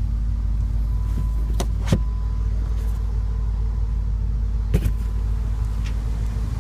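Steady low rumble of a 2015 BMW M6 Gran Coupe's twin-turbo V8 idling, with a few light clicks about one and a half, two and nearly five seconds in.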